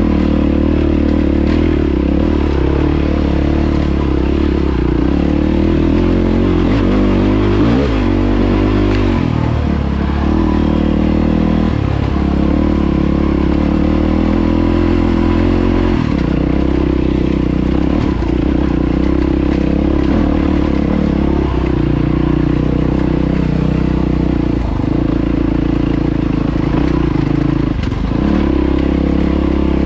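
Yamaha WR450F's single-cylinder four-stroke engine running under load, its note rising and falling with the throttle and dropping briefly several times as the throttle is eased.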